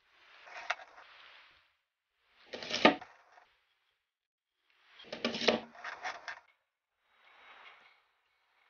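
Rings of glued matchsticks being handled and slid down a plastic pipe, stacked one on another: four short bursts of scraping and clattering with sharp knocks, the second and third the loudest.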